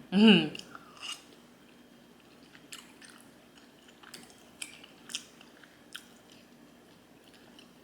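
Close-miked mouth sounds of a person chewing a sushi roll: sparse wet clicks and smacks, about one every second.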